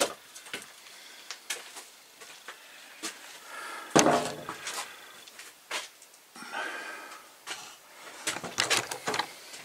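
Hatchet splitting kindling on a wooden chopping block: a sharp chop right at the start, then scattered knocks and clatters of wood, the loudest about four seconds in.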